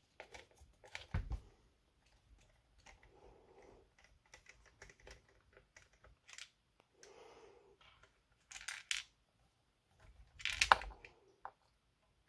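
Scattered small plastic clicks and rubbing as hands work a wire and its connector loose on a Traxxas Slash 4x4 RC truck, with a louder clatter of clicks about ten and a half seconds in.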